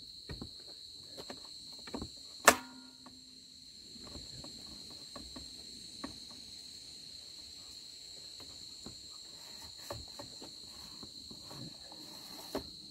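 A steady, high-pitched insect trill runs throughout. Over it come a sharp click about two and a half seconds in and a few softer clicks and knocks as the trolling motor's clamp bracket and shaft are handled.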